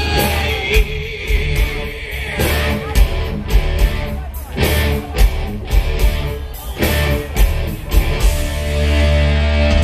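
Live hard rock band, amplified: distorted electric guitars and bass over heavy drum hits. Near the end the drumming thins out and the band holds one long chord as the song closes.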